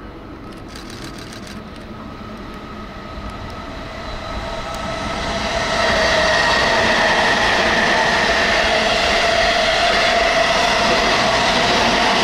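JR 255 series limited-express electric train approaching and passing at speed. It grows louder over the first six seconds, then holds a steady loud rush of wheels on rail with a high steady whine.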